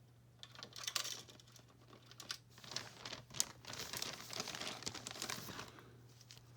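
Crinkling of plastic with small clicks and taps as miniature toy handbags are handled and fitted into a plastic display case. The rustling is irregular and busiest in the second half.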